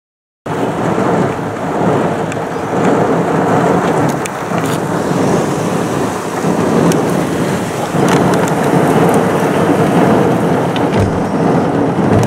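Heavy thunderstorm downpour: rain pouring and drumming on surfaces, with thunder rumbling. It cuts in abruptly about half a second in and stays loud and dense, swelling now and then.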